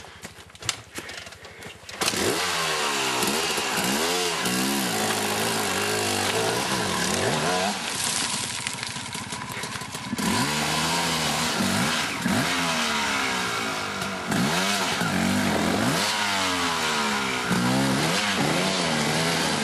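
Enduro motorcycle engine revving hard and repeatedly, its pitch swinging up and down as the bike is ridden over a rocky trail. A few clicks and knocks come first, then the engine sound comes in loud about two seconds in, easing briefly around the middle before revving again.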